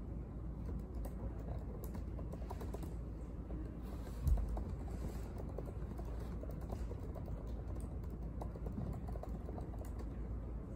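Laptop keyboard typing: irregular soft key clicks over a steady low room hum, with one dull thump about four seconds in.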